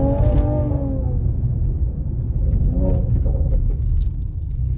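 Mercedes-AMG GT 53's turbocharged 3.0-litre inline-six and exhaust running at low revs under way, heard from inside the cabin as a steady low rumble. A higher engine note fades out in the first second as the revs settle.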